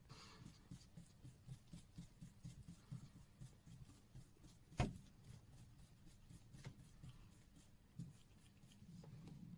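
Faint rapid rubbing strokes, about four a second, of a quartz watch's circuit board being cleaned of glass particles. One sharp click a little under five seconds in, with a few softer clicks after.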